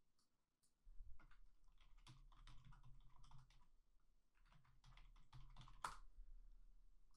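Computer keyboard typing: two faint runs of quick keystrokes, with one louder key press near the end.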